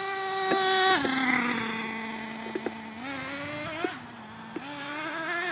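Small nitro engine of a Traxxas T-Maxx RC monster truck running: a steady high whine that drops sharply about a second in as the throttle eases, holds low, then climbs and wavers toward the end.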